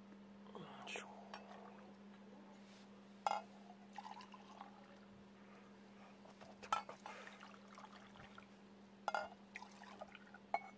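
Liquid poured from one enamel camp mug into another, with several sharp clinks of the metal mugs knocking together or being set down on the table.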